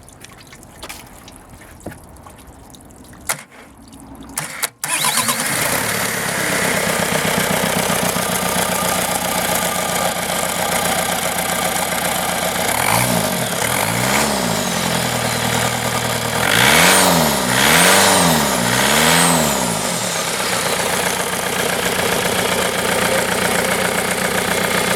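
Volkswagen 1.9 TDI (engine code 1Z) four-cylinder turbodiesel starting about five seconds in and settling into a steady idle. About halfway through it is revved twice briefly, then a few seconds later revved three or four more times in quick succession before returning to idle.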